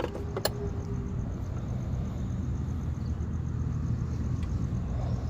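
Steady low rumble of a vehicle engine idling, with two sharp metal clicks from a ratchet wrench in the first half second.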